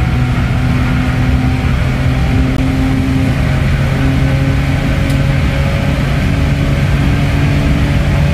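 Hyundai Tiburon GT's V6 engine and exhaust heard from inside the cabin, held at steady high revs with the tachometer near 5,000 rpm. The drone stays level with only slight shifts in pitch.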